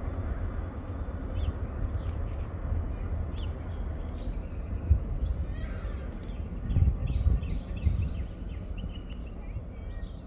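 Birds chirping and calling in short repeated phrases over a steady low rumble.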